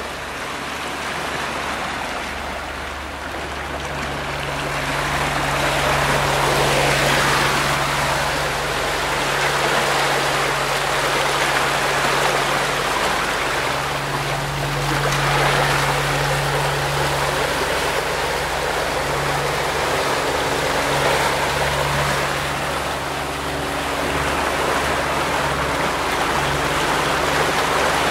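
Sea water rushing and splashing in the wake behind the stern of a 50-foot sailing catamaran under way, with a low steady hum underneath that swells and fades.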